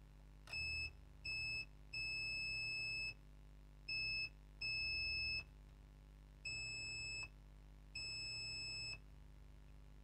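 Digital multimeter's continuity buzzer beeping seven times in uneven lengths, from a short blip to about a second, as the probes touch points on a laptop motherboard that read low resistance between them.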